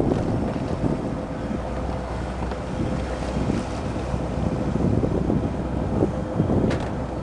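Wind buffeting the microphone in a gusty low rumble, over the steady drone of a rigid inflatable boat's engine as the boat motors away across the water.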